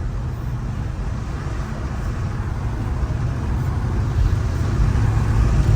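Car driving on a rain-soaked highway, heard from inside: a steady low rumble of engine and tyres with a hiss of spray from the wet road, growing slowly louder.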